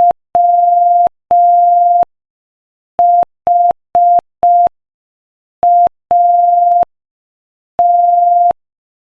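Morse code sent as a steady single-pitch beep at 5 words per minute, short dits and long dahs. The beeps spell W-H-A-T: dit-dah-dah, four dits, dit-dah, then one dah near the end.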